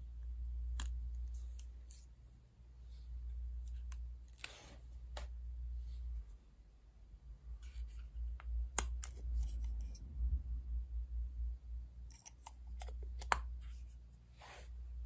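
Hands handling a GoPro Hero 11 action camera and its plastic parts: scattered sharp clicks and scrapes with soft rustling, over a steady low rumble.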